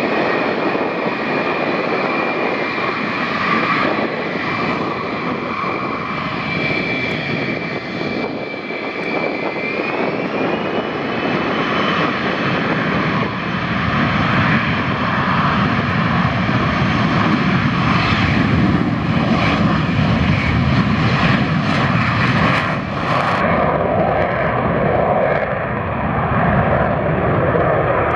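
F-35B's jet engine, with its lift fan engaged, running with a high whine over a heavy rumble. The whine steps up in pitch about ten seconds in as power comes up, and a deeper, louder rumble builds a few seconds later.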